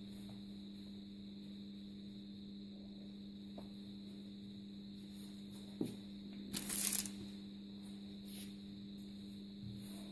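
Hands working challah dough on a floured counter: a soft knock about six seconds in, then a brief rustling scrape, over a steady electrical hum.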